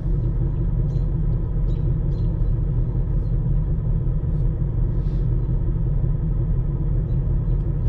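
Ford Mustang 5.0 Coyote V8 idling steadily with a low rumble while warming up to operating temperature.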